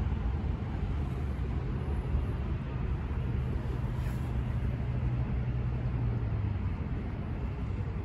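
Steady low outdoor rumble like distant traffic or engines, with a low engine-like hum that comes in about a second in, strengthens, and fades out about six and a half seconds in.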